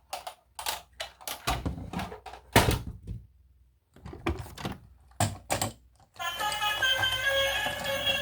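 Irregular clicks and knocks of plastic toys being handled, a few heavier thunks among them; about six seconds in, music begins.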